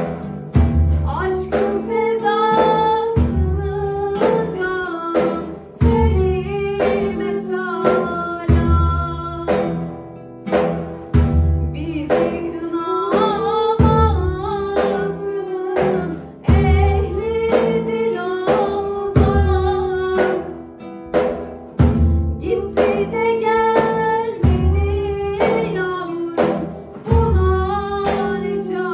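A woman singing a Turkish folk song, accompanied by guitar, with a bendir frame drum beating under it.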